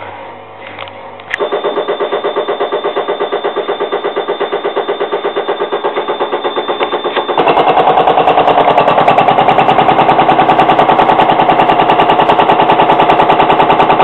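Hotpoint washing machine on its spin cycle, running with a loud, rapid rhythmic knocking and rumbling that gets louder about seven seconds in. The noise comes from worn-out drum bearings, which is what the owner finds when he checks the drum.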